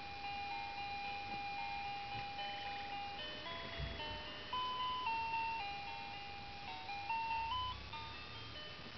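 Crib soother toy playing a simple electronic lullaby melody: one long held note, then a string of short notes stepping up and down. A soft low thump about four seconds in.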